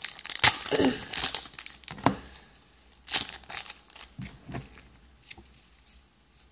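Foil trading-card booster pack wrapper being torn and crinkled as it is opened, in bursts over the first second and a half and again around three seconds in, then lighter clicks and slides as the cards are handled.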